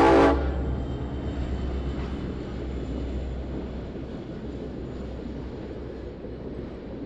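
A diesel locomotive's horn cuts off just after the start, leaving the steady low rumble of a freight train's locomotives and cars rolling past, slowly fading.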